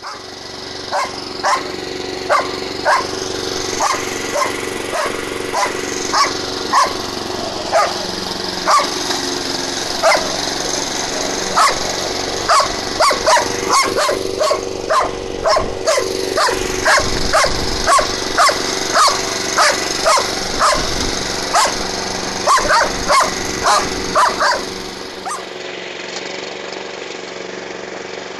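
German shepherd-type dog barking repeatedly at a running lawn mower, about one to two barks a second, stopping about 25 seconds in. The mower's engine runs steadily underneath throughout.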